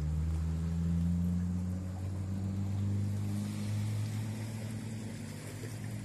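Low, steady drone of a boat engine out on the water, its pitch shifting slightly over the seconds.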